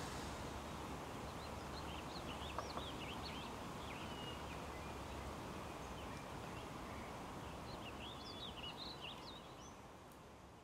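Garden ambience: a steady background hiss with small birds chirping in short bursts, a cluster early on and another about two thirds through, slowly fading out near the end.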